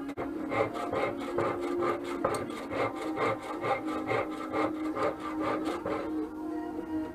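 A long hand rasp scraping along a wooden walking stick in quick back-and-forth strokes, about three a second, shaping the carved wood.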